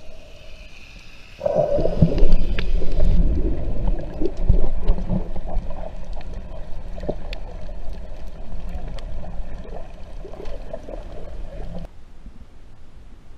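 Muffled underwater sound picked up through an action camera's waterproof housing: low rumbling water movement with bubbling and scattered clicks. It drops away suddenly near the end.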